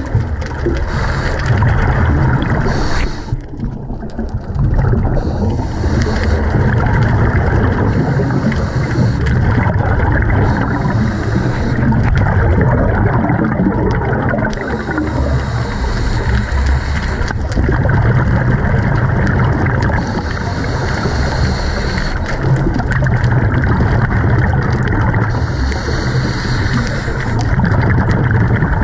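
Scuba regulator breathing heard underwater: a hissing inhale and a bubbling, rumbling exhale that repeat about every five seconds.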